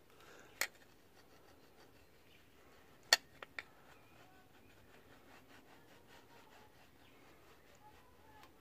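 Flat screwdriver scraping old gasket residue off the water-pump mounting face of a 1.5 dCi engine block: faint scraping with a few sharp metal clicks, the loudest about three seconds in.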